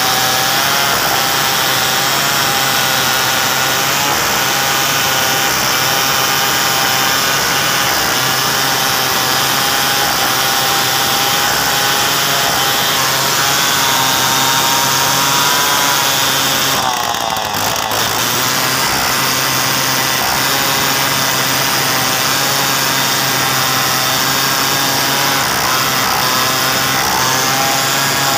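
Two-stroke chainsaw running at high revs under load, ripping lengthwise through a mahogany log. Its note wavers with the load and dips briefly about two-thirds of the way through.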